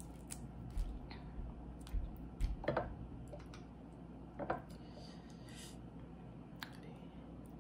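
Crawfish shells being cracked and peeled by hand: scattered faint clicks and crackles, a few louder sharp snaps, and some low bumps in the first three seconds.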